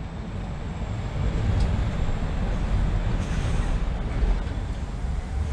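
Uneven low rumble with a faint hiss, typical of wind buffeting an outdoor camera microphone, swelling and easing without any steady engine tone.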